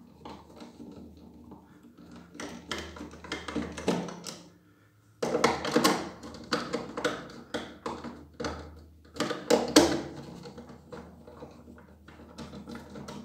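Torx 20 screws being backed out of a pressure washer's plastic housing with a screwdriver, and the plastic feet handled and worked loose: a run of irregular light clicks and knocks, broken by a short silence about a third of the way in.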